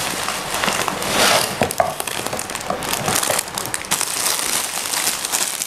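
Clear plastic wrapping crinkling and rustling as a small toy robot is pulled from its box and handled in its bag, with many small crackles.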